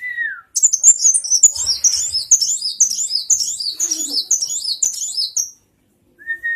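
Sunbird singing a fast, high-pitched twittering song of rapidly repeated chirps for about five seconds. It is bracketed by a short falling whistle at the start and again at the end.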